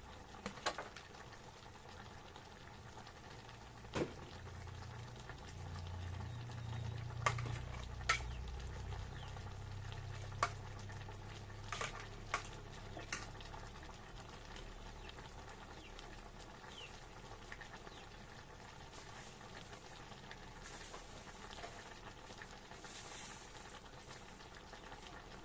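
A pot of liquid boiling steadily, with a handful of sharp clinks, most of them in the first half, like a utensil knocking against the pot.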